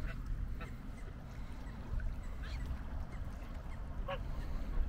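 White domestic geese on a lake giving a few short, separate honks, over a low wind rumble on the microphone.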